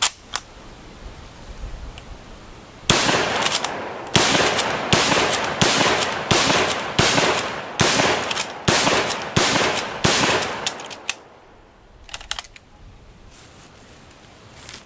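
Lee-Enfield No. 4 bolt-action rifle in .303 British fired rapidly, about ten shots at roughly one every three-quarters of a second, starting about three seconds in, each shot with a short echo. A few lighter clicks follow after the last shot.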